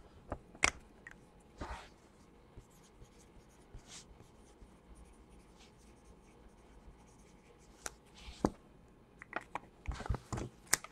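Trading cards and a plastic card sleeve handled on a tabletop: scattered soft rustles and slides with short taps, and a cluster of sharper clicks near the end.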